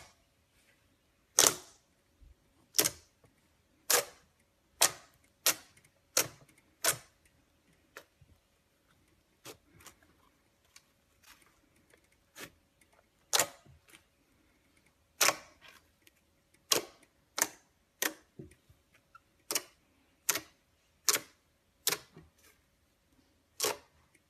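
Glossy slime pressed, folded and poked by hand, giving sharp wet clicks and pops at an irregular pace of roughly one a second.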